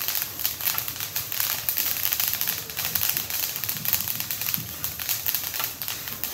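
Black sesame seeds dry-roasting on high flame in a stainless steel kadai, stirred continuously with a wooden spatula: a dense, steady crackle of seeds shifting and starting to pop.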